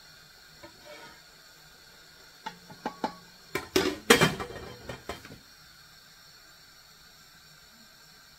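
Metal pot lid and slotted spoon clinking and clattering against an aluminium cooking pot: a few light clinks, one of them ringing briefly, then a louder clatter about four seconds in. A faint steady hiss runs underneath.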